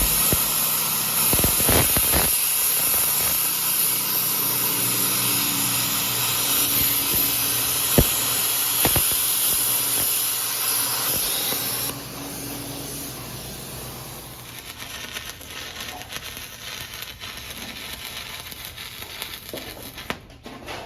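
Welding arc hissing and crackling steadily with a few sharp pops, then the arc is broken about halfway through and the sound falls off to a quieter background.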